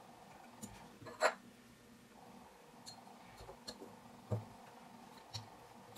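Light metal clicks and taps from a Zero Tolerance 0560 folding knife's parts (pivot hardware, blade and frame) being handled and fitted together during reassembly. The clicks come scattered and irregular, the loudest about a second in.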